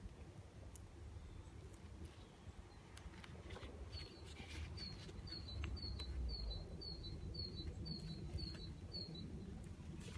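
A small bird calling: a row of about ten short, high chirps at an even pace of roughly two a second, starting about four seconds in and stopping near the end. Under it runs a low steady rumble, with faint clicks and rustles of hands pressing down duct tape.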